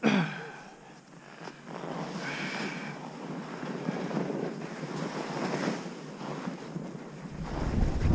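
Skis hissing and scraping over packed, wind-carved snow on a steep descent, after a sharp thud at the very start. Wind buffets the helmet camera's microphone, growing into a strong rumble from about seven seconds in as the skier picks up speed.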